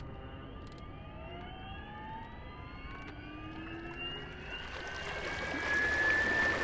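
Electric outboard motor on a dinghy speeding up: a whine that rises steadily in pitch and grows louder, with a rush of noise building toward the end.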